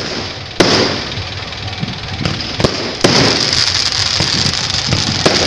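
Aerial fireworks going off: a sharp bang about half a second in and several more bangs a couple of seconds later, then a steady high crackling hiss from about three seconds in.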